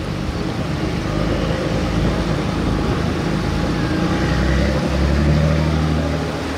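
Heavy diesel engines of a Shannon-class lifeboat and its launch tractor running as the boat powers off the tractor's carriage into the sea. A deep, steady engine note comes in strongly about five seconds in.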